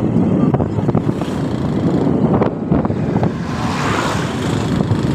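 Motorcycle running on the move, with wind on the microphone. About three and a half seconds in, a louder rush of noise swells and fades as a truck passes close alongside.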